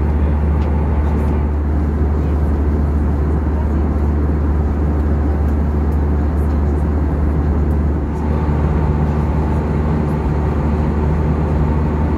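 Steady cabin noise of an Airbus A320 airliner in cruise, heard from a window seat: a deep, constant hum of the engines and airflow with a broad rush over it. About two-thirds of the way through the level dips briefly.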